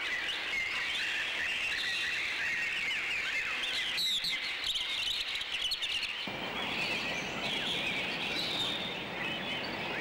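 Many small birds chirping and twittering together in a dense chorus. About six seconds in, a steady rushing noise joins underneath.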